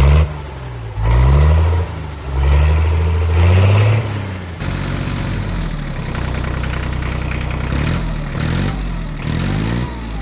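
Diesel tractor engine revving up and down three times, then changing abruptly about halfway through to steadier running with a few short revs near the end.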